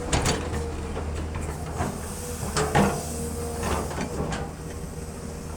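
Caterpillar 320 excavator's diesel engine running steadily with a steady hydraulic whine, and about six sharp metallic clanks and knocks while it works, the loudest just under three seconds in.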